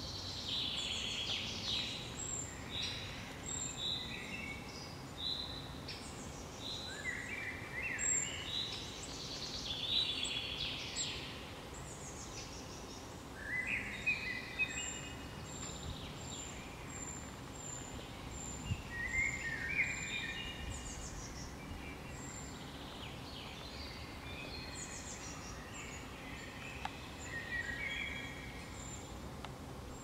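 Several songbirds singing at once in woodland, their songs overlapping. One bird's short song phrase comes back every few seconds, and high thin notes repeat steadily above the rest.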